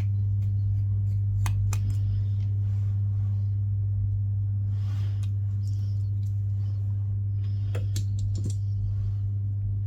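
Small repair tools clicking and scraping on the metal and plastic parts inside an opened iPhone 15 Plus as the front camera is pried loose. Scattered sharp clicks, a quick cluster of them near the end, and short scratchy scrapes, all over a steady low electrical hum.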